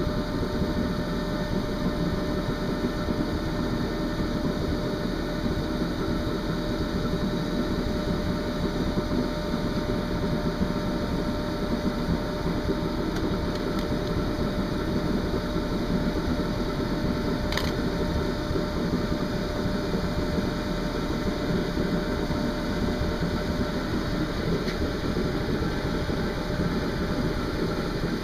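Steady whir of a small electric motor and fan, running evenly throughout, with a single faint click about two-thirds of the way through.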